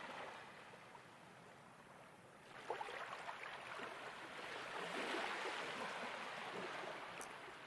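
Ocean waves washing on a shore. After a quiet lull, a wave swells about two and a half seconds in, peaks around the middle, then slowly draws back.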